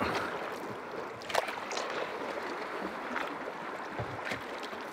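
River water rushing and splashing against a small boat drifting through a rough, rapids-like stretch of river, with a few sharper slaps of water or knocks on the hull.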